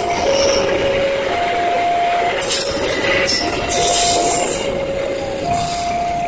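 Passenger train coaches rolling past at speed, a loud rushing rumble of wheels on rail with a high wheel squeal in the middle that fades as the train's tail recedes. Over it the level-crossing warning alarm sounds its two alternating tones, low and high, about one tone a second, signalling that a train is passing through the closed crossing.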